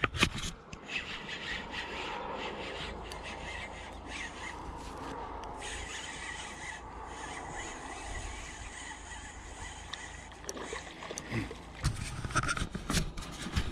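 Spinning reel being cranked during a lure retrieve, with a steady grinding rasp because it had been dropped in the water. A few sharp knocks near the end.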